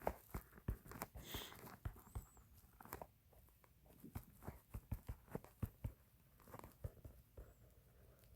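Faint, irregular clicks and taps, a few a second, made while text is being entered on a computer.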